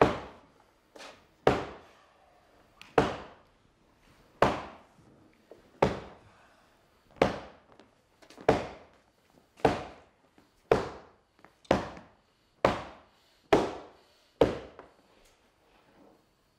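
A steady series of heavy thuds with a hall echo after each. They come about one every second and a half at first, then draw closer to about one a second.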